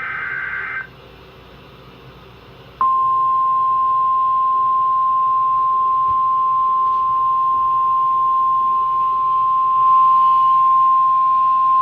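Emergency alert signal: the last burst of the warbling SAME digital header for about a second, then, after a short pause, the single steady 1050 Hz weather-radio warning tone for about nine seconds. The tone announces a tornado warning about to be read.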